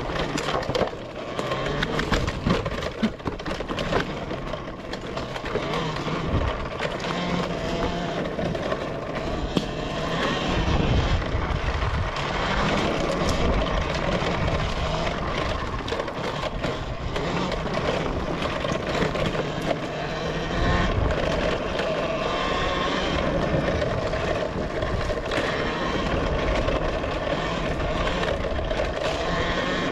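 Talaria Sting electric dirt bike ridden along a bumpy dirt trail: the electric motor's whine rising and falling with the throttle, over a low rumble, with frequent rattles and knocks from the bike over bumps.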